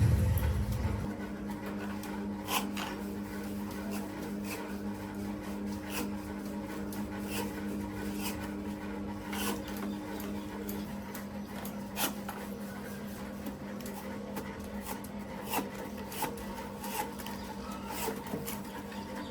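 Light rubbing and scraping with scattered sharp clicks, the sound of hand work at a workbench, over a steady electric hum; a low rumble fades out in the first second.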